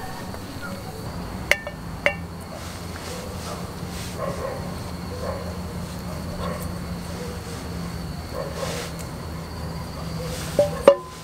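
Metal camp cookware clinking: two short ringing clinks about a second and a half in, soft handling sounds, then two louder clinks near the end as a small stainless steel cup knocks against the rim of a metal pot. A steady low hum and a faint high tone sit underneath.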